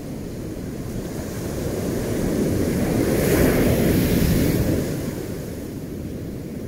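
Ocean surf: waves washing in with a low rumble, swelling to a breaking wave about three seconds in and easing off again near five seconds.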